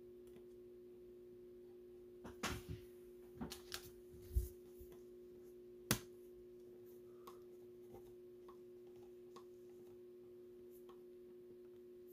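Cards and plastic card holders being handled: a few soft taps and rustles about two to four seconds in, a low thump, then one sharp click about six seconds in. A steady electrical hum runs underneath.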